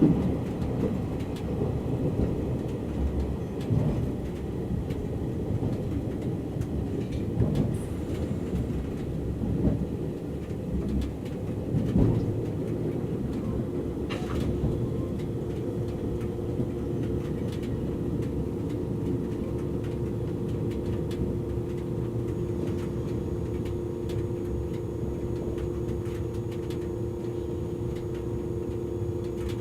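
Interior running noise of an E351-series limited express train: a low rumble with irregular knocks that eases off about twelve seconds in, as the train slows for its Shiojiri stop, leaving a steadier noise with a steady electrical hum.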